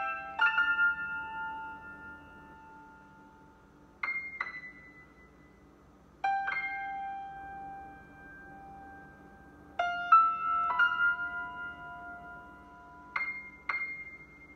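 Piano notes played on a tablet's touchscreen piano app: a slow piece of chords and single notes struck in twos and threes every few seconds, each left to ring and fade.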